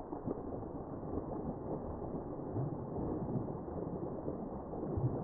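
Slowed-down audio from a phone's super slow-motion recording: a muffled, low rumbling noise with a few dull thuds, the stretched-out sound around a small homemade firecracker bursting a water-filled cooler jug.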